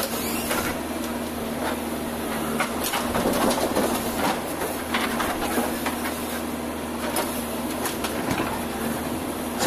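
JCB backhoe loader's diesel engine running steadily, with scattered knocks and a stretch of clatter about three seconds in as it works.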